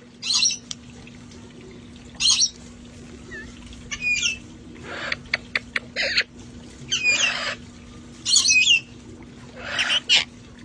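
Parrots calling outdoors: short, harsh squawks roughly every one to two seconds, with a few sharp clicks mixed in, over a faint steady low hum.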